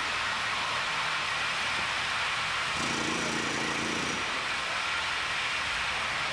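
Steady construction-site machine noise: a continuous hiss, with a motor's hum coming in for about a second and a half around halfway.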